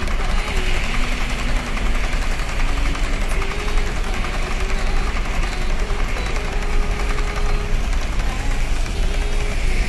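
HO-scale model trains running on layout track: steady rolling of metal wheels on the rails with an electric motor hum that wavers in pitch.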